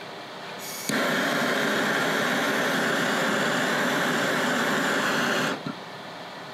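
Handheld gas torch lit about a second in, its flame hissing steadily for about four and a half seconds, then shut off abruptly. It is heating a steel action screw to melt a thin coat of paste wax over it.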